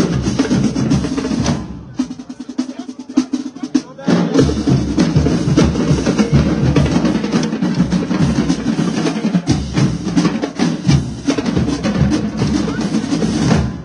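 Marching drumline of snare, tenor and bass drums with cymbals playing a loud cadence. About two seconds in it drops to a quieter passage of quick, sharp stick hits, the full line comes back in at about four seconds, and it stops abruptly at the very end.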